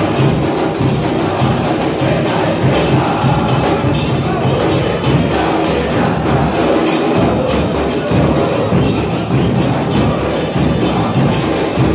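A large crowd of football supporters singing a chant together over steady beating of bass drums, in a concrete concourse under the stands.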